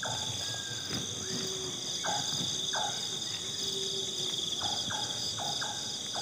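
Night chorus of crickets and other insects, a steady high-pitched buzzing, with short calls from another night animal repeated every second or so over it.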